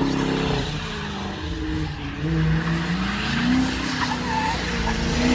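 Dodge Charger doing donuts on wet asphalt: its engine is held at high revs, the pitch rising and falling, while the spinning rear tyres skid and hiss across the pavement.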